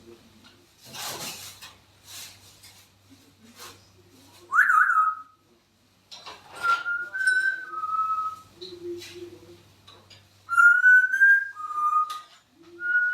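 African grey parrot whistling: a sharp, warbling whistle about four and a half seconds in, then twice a clean whistled phrase that steps up a little and drops to a lower held note.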